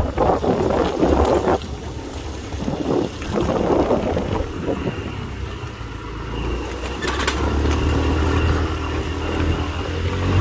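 Rustling and knocks of a handheld phone rubbing against clothing and a helmet, then a motorbike engine running at idle: a low steady hum from about seven seconds in.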